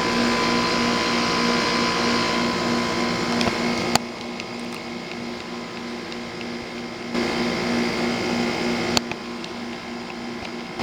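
2001 Trane XE1000 5-ton heat pump running in heat mode with its outdoor coil frozen up: a steady hum from the scroll compressor over the rush of the condenser fan. The sound drops in level about four seconds in and comes back up about three seconds later, with a sharp click at about four seconds and another at about nine.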